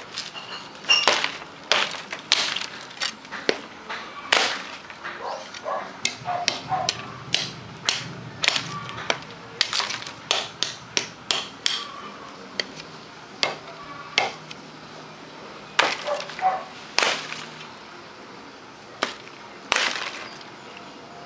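Truck-spring-steel bolo machete chopping small tree branches: many sharp strikes at an uneven pace, often several a second, with a break of about two seconds near the end.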